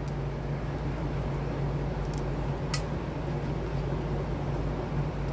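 A steady low mechanical hum, like a fan or similar running machine, with two light clicks about two and three seconds in as small metal brake parts are handled.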